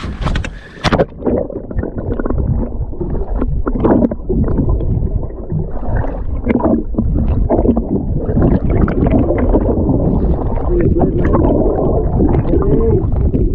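Muffled underwater sound from a camera pushed below the surface about a second in: low rumbling and gurgling of water moving around the housing, with irregular swells.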